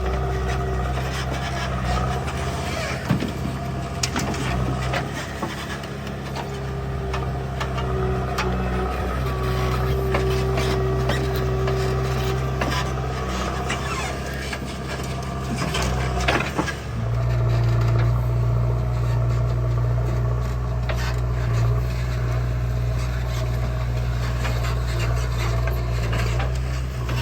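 Diesel engine of heavy earth-moving machinery running steadily, with scattered clunks and scraping. Its note steps up and gets louder about two-thirds of the way through.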